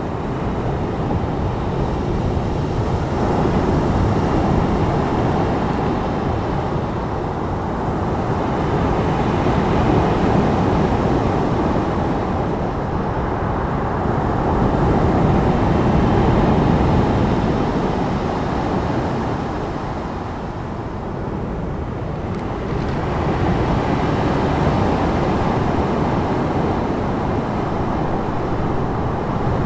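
Medium sea waves washing onto a shore: a steady, deep wash of water that swells and eases every several seconds.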